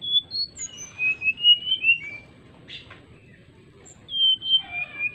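Brown-chested jungle flycatcher singing clear, flute-like whistles. A quick run of short whistled notes lasts about two seconds, then a second phrase begins about four seconds in.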